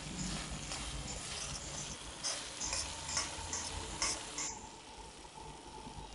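Thick pumpkin halwa sizzling in a steel kadai while a steel ladle stirs and scrapes it against the pan, with repeated short scrapes. The sizzle cuts off suddenly about four and a half seconds in, leaving a few faint clicks.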